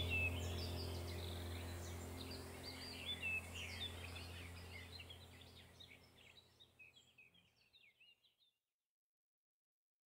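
Faint chirping of birds over a low steady drone, both fading out gradually until gone about eight seconds in.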